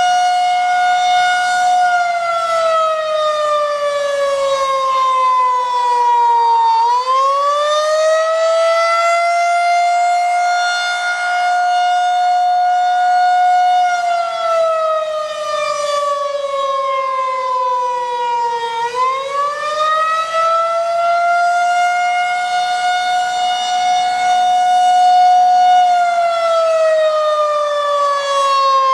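Federal Signal 2001-130 rotating electromechanical siren sounding the attack signal, a wail. It holds a high tone for several seconds, slides down in pitch, then climbs back up. This happens twice, and the tone starts sliding down again near the end, while the horn turns.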